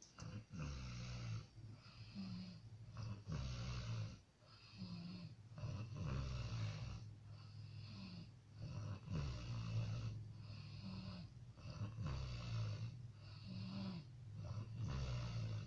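A sleeping person snoring loudly, with a rough snore on each breath repeating about every one to two seconds.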